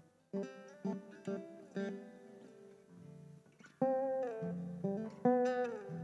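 Metal-bodied resonator guitar being fingerpicked: a run of single plucked notes, then louder, ringing chords about four and five seconds in, over a sustained low note.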